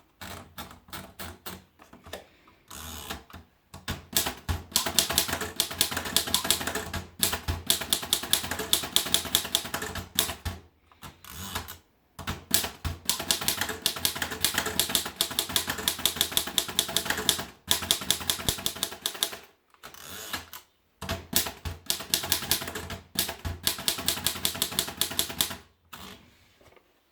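Erika Model S manual portable typewriter being typed on: fast runs of sharp key strikes, many a second, broken by short pauses.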